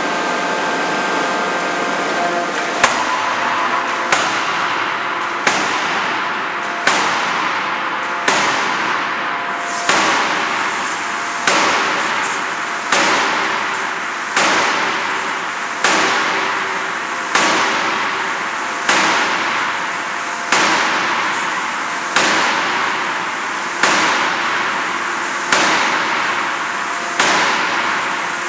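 Industrial forging hammer striking in a steady rhythm, about one heavy blow every second and a half, each blow followed by a hissing decay. Before the first blow there is a few seconds of steady machine hiss.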